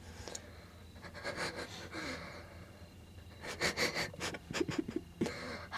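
Close, hushed breathing and sniffing, with a cluster of small clicks and rustles about three and a half seconds in.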